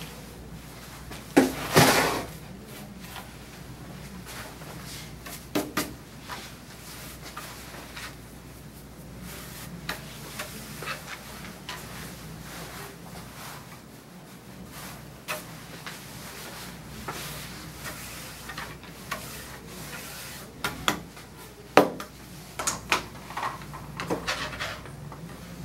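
Scattered knocks and thuds from a grooming table and tools being handled, the loudest about two seconds in and again near the end, with the soft rubbing of a brush through a small dog's coat between them, over a steady low hum.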